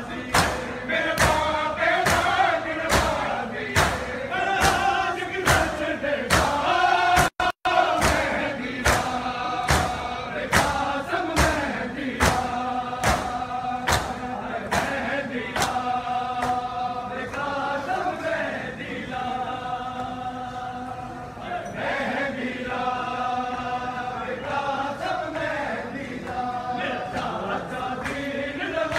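A mourning crowd chanting a nauha (Muharram lament) in unison, with rhythmic chest-beating (matam) thumps about twice a second. The beats grow faint in the later part while the chanting goes on. The sound cuts out for a moment about seven seconds in.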